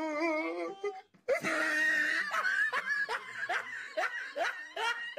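High-pitched laughter. A wavering, drawn-out voiced sound in the first second, then after a short gap a loud breathy burst of laughing that breaks into a run of short "ha" pulses, about three a second.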